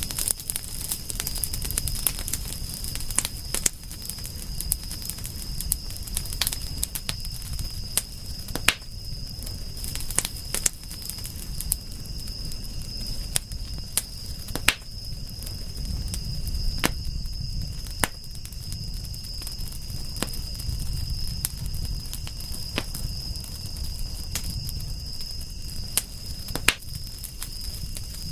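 Wood fire crackling, with frequent sharp pops and snaps over a low rumble of flames, and a steady high-pitched tone behind it.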